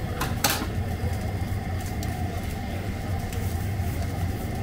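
A steady low machine hum under a wash of background noise, with two short clicks in the first half second.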